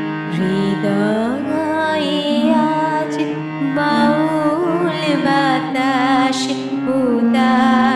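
Instrumental interlude of a Bengali song: harmonium chords held steady, with a wavering melody line bending in pitch above them.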